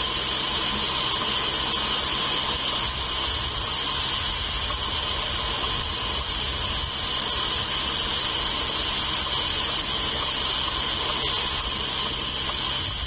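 A steady hiss with a constant high-pitched band, unchanging throughout and with no distinct bird calls.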